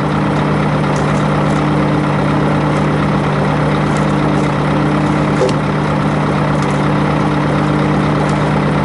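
A heavy truck's diesel engine idling steadily, an even, unchanging hum.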